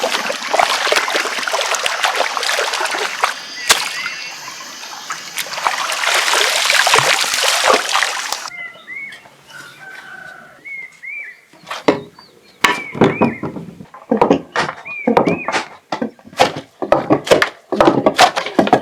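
Water splashing and sloshing, as in hand work in a water vat. After a sudden cut come short high chirps, then a quick, uneven run of sharp knocks.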